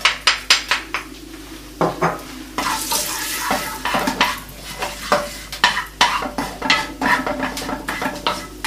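Wooden spatula stirring and scraping whole spices and bay leaves around a nonstick frying pan in quick repeated strokes, over the sizzle of the spices frying in hot olive oil. The sizzle grows louder for about a second and a half, about three seconds in.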